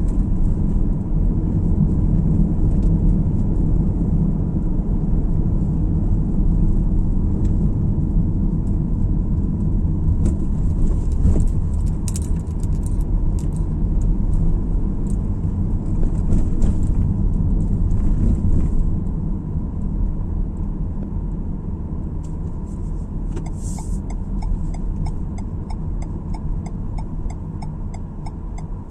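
Car driving on the road, a steady low rumble of tyres and engine heard from inside the cabin, easing somewhat in the last third. A few light clicks come about halfway through, and a regular light ticking starts near the end.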